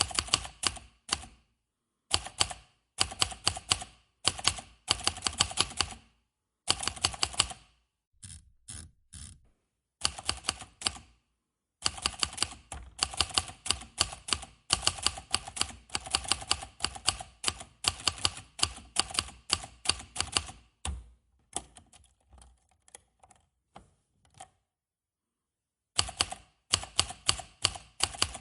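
Manual typewriter being typed on: rapid runs of key strikes in bursts, with short pauses between runs. A few softer, sparser strokes come before a pause of about a second and a half near the end.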